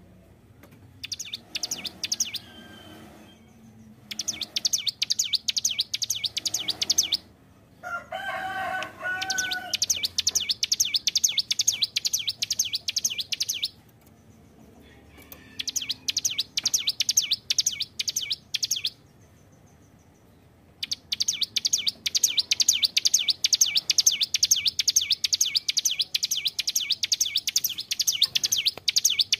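Ciblek gunung (a prinia) singing in long, very fast high-pitched chattering trills of several seconds each, with short pauses between runs. A brief, lower-pitched call breaks in about eight seconds in.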